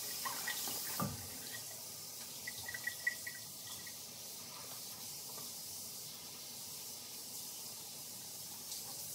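Bathroom sink tap running in a steady hiss, with a single soft knock about a second in.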